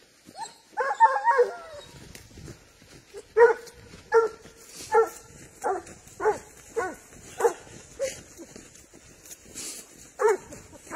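Spanish hound (sabueso español) baying as it works a wild boar scent trail: a quick burst of yelping calls about a second in, then single bays roughly every 0.7 s, each dropping in pitch, and a last pair near the end.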